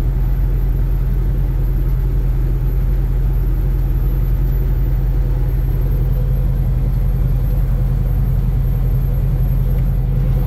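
Semi-truck cruising on the highway at about 62 mph, heard inside the cab: a steady low drone of diesel engine and road noise.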